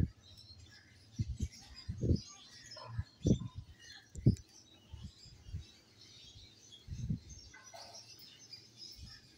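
High, scattered chirps and twittering from albino red-eyed lovebirds in a wire cage. Several short, dull low thumps are louder than the chirps, mostly in the first half and once more about seven seconds in.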